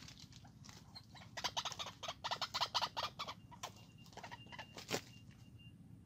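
A captured white-breasted waterhen clucking and squawking in a fast, harsh run as it is grabbed and handled, lasting about two seconds from around a second and a half in. A single sharp click follows near the end.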